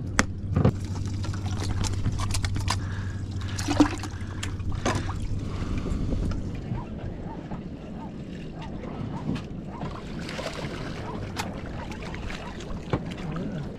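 A boat's motor hums steadily under the wash of open water, mixed with scattered knocks and clicks of gear being handled on deck. The hum stops about halfway through.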